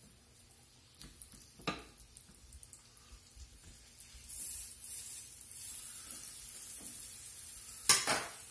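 Flour-dusted cube steaks frying in a skillet of hot butter and vegetable oil: a steady sizzle sets in about four seconds in as the steaks are laid into the fat. A few light clicks come before it, and a sharp knock near the end.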